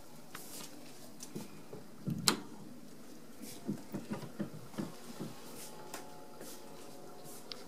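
A sharp click a little over two seconds in, then a run of soft footsteps on a wooden floor.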